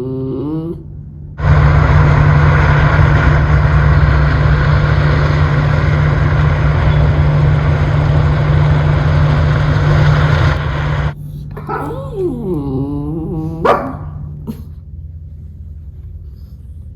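Miniature schnauzer whining with a wavering pitch, cut off by about ten seconds of loud steady noise with a low hum that starts and stops abruptly; the whining returns near the end.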